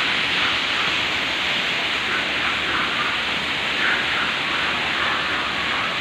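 Artificial rock waterfall in a planted exhibit, water falling and splashing in a steady rushing noise.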